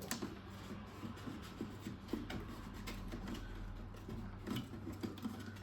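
Handling noise of cardboard and sticky tape: scattered light clicks, scrapes and rustles as tape is pressed onto a folded cardboard corner, over a low steady hum.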